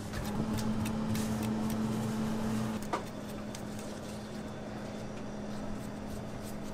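A steady low machine hum, a little louder for the first few seconds, under the soft scraping of a metal offset spatula spreading and smoothing cream cheese frosting on a cake, with one sharp tap about three seconds in.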